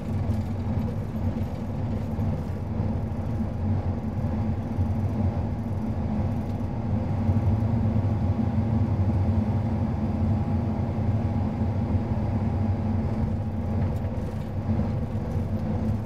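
A combine harvester's engine running steadily as it travels down a gravel road, heard from inside the cab as a low drone with a faint steady whine over it.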